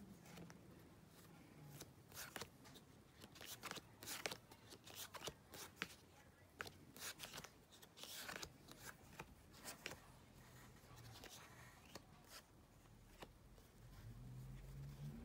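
Baseball cards being handled and sorted: a run of faint rustles, slides and clicks, thinning out after about ten seconds.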